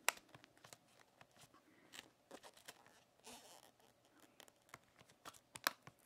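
Faint clicks and scrapes of fingers pressing the L-shaped memory bracket into a MacBook's battery bay. A sharp click comes at the very start, a short scrape about three seconds in, and another sharp click near the end.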